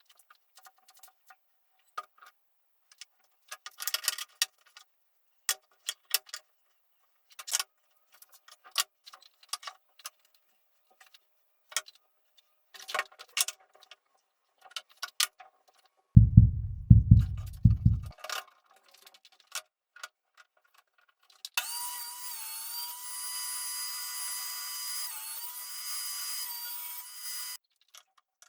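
Workshop handling sounds: scattered clicks and knocks of tools and wood, then a loud low run of thumps for about two seconds midway. After that a small electric power tool motor whines steadily for about six seconds, dipping briefly once before it stops.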